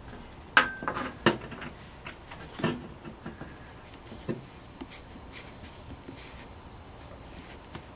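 Thin white metal mounting plate clicking and knocking against the wall and screw heads as it is fitted over them by hand: a few sharp metallic taps, the loudest in the first three seconds, then fewer and fainter.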